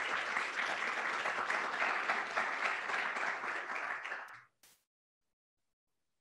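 Audience applauding, a dense clatter of many hands clapping that fades and stops about four and a half seconds in.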